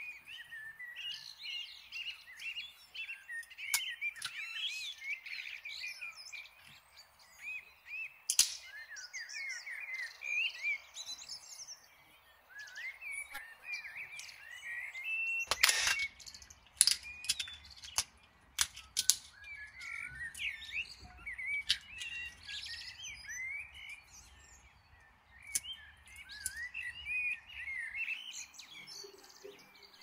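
Small birds chirping continuously, with a few sharp cracks and clicks as boiled walnut shells are pried apart by hand. The loudest crack comes about halfway through.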